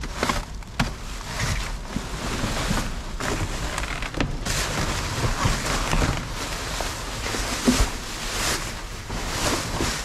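Rummaging through a trash container: continuous rustling with scattered knocks as items are handled, over a low rumble.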